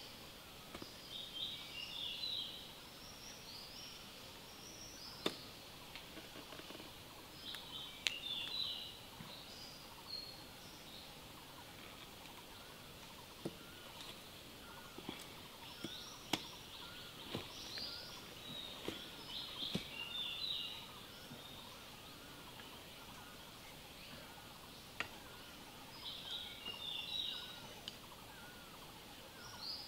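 Forest birdsong: a bird gives short bursts of quick, high chattering calls every few seconds over a steady high hiss, with a few sharp single clicks of wood being handled.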